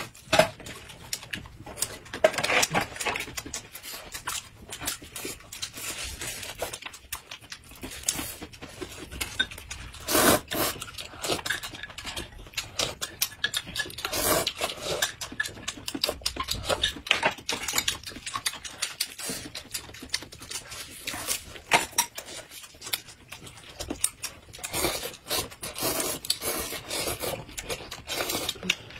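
Close-miked eating sounds: chewing and slurping, mixed with irregular clicks and clinks of utensils on bowls and plates.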